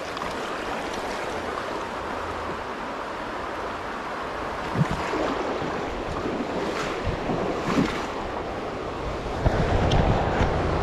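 Shallow rocky stream running steadily, a rushing wash of water with wind buffeting the microphone. A few light knocks come in the middle, and a louder low rumble of wind starts near the end.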